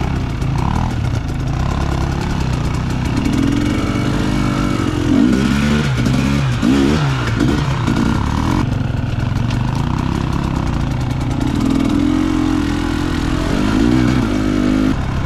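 Enduro motorcycle engines running under way off-road, revving up and down with quick rises and falls in pitch about five to eight seconds in, and steadier running before and after.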